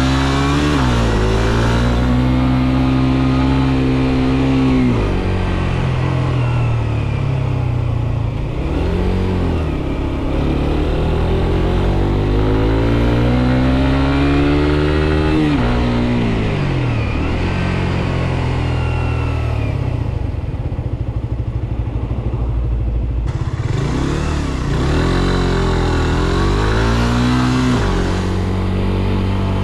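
Suzuki GSX-R125's single-cylinder four-stroke engine, heard from on the bike, revving up and dropping in pitch at each gear change. It settles to a steady low run for a few seconds about two-thirds of the way through, then revs up through the gears again near the end.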